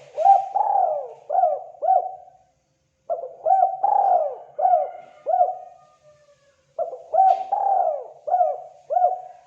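Spotted dove (terkukur) cooing: three calls a few seconds apart, each a run of about five notes.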